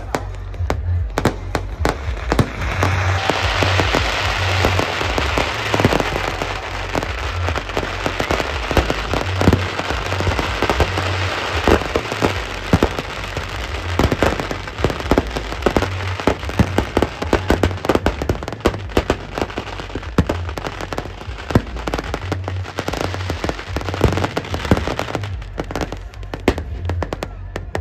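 Fireworks going off continuously: aerial shells and firecrackers in rapid bangs, with a dense crackling from about three seconds in until near the end.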